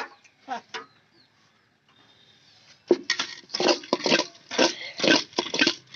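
A metal ladle stirring puffed rice coated in date molasses inside an aluminium pot. About three seconds in comes a run of about ten scraping, crunching strokes, roughly three a second.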